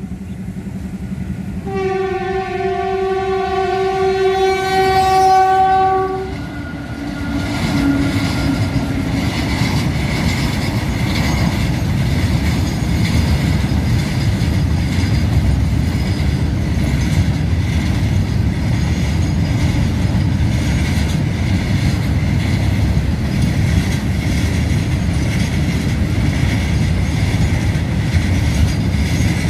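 A train horn blows briefly at the start, then sounds one long blast from about two seconds in to about six seconds. After that, a freight train of open-top wagons rumbles and clatters steadily past on the rails.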